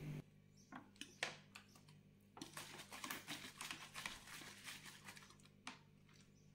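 Plastic bottle of frozen, slushy lemonade crinkling and crackling in a hand's grip: a run of faint, irregular crackles and clicks.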